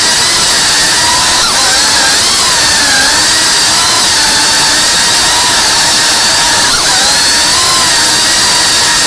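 A 3.5-inch cinewhoop FPV drone's motors and propellers whining loudly. The pitch dips and rises every few seconds as the throttle changes, heard close up from the drone itself.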